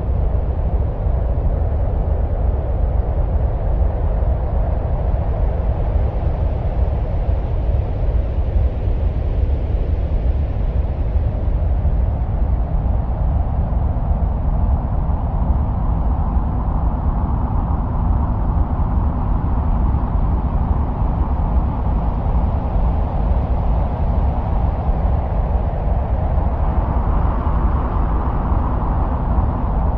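Continuous deep, rumbling wind-like noise presented as the sound of Mars, with a hissing band that slowly rises and falls in pitch and climbs higher near the end.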